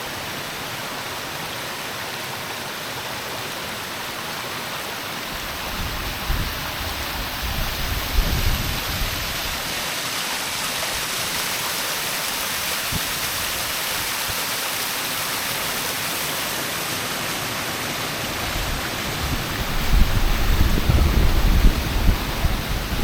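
Waterfall water rushing steadily. Low rumbling gusts come in about six seconds in and again near the end.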